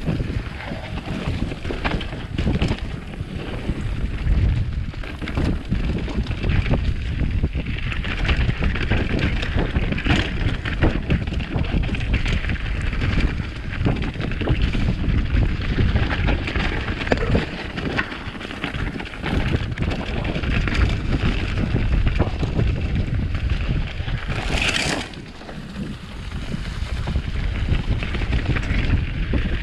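Mountain bike riding down a dirt trail: wind buffeting the camera microphone over tyres rolling on dirt and dry leaves, with frequent knocks and rattles from the bike over rough ground. A brief loud hiss comes near the end, followed by a moment of quieter riding.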